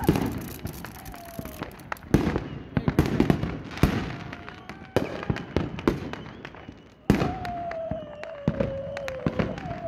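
Consumer fireworks going off: a spark fountain and aerial shells crackling with many quick sharp pops and bangs. About seven seconds in a louder bang is followed by a slowly falling whistle lasting about two and a half seconds.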